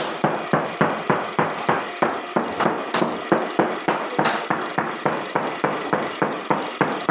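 Hammer striking in a steady, fast rhythm, about four blows a second, during tile repair work.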